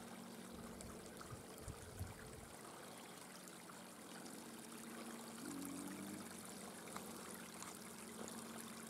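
Faint, steady trickling of a small brook.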